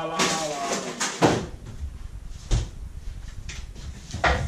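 Knocks and thuds of kitchen cupboards and drawers being opened and shut. The loudest knock comes about a second in, with others at about two and a half and four seconds.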